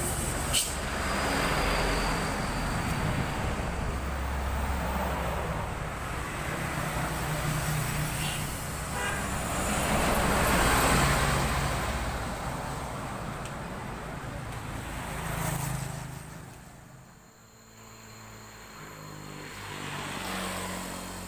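Road traffic going by: several vehicles pass one after another, their engine and tyre noise swelling and fading. The traffic thins out about three-quarters of the way through, then builds again.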